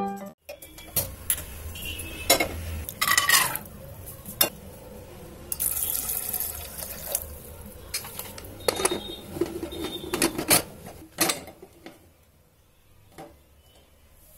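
An aluminium pressure cooker holding chickpeas in water is being handled. It gives a string of scattered metal knocks and clinks, some ringing briefly, with water sloshing. The knocks die away about two-thirds of the way through.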